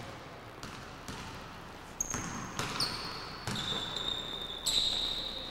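A basketball bouncing on a hardwood gym floor as a player dribbles, several separate bounces, along with sneaker squeaks: short high-pitched squeals that come and go from about two seconds in.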